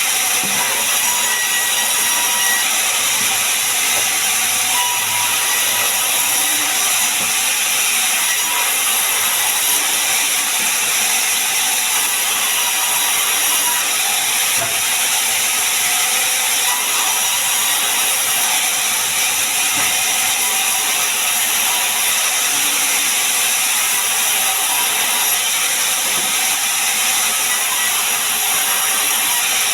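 Sawmill saw running and cutting sengon wood, a loud, steady, high-pitched hiss without breaks.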